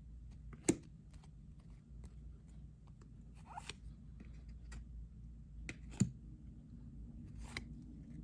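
Trading cards being handled and flipped through in the hand: faint sliding and rustling of card stock, with two sharp clicks, about a second in and about six seconds in.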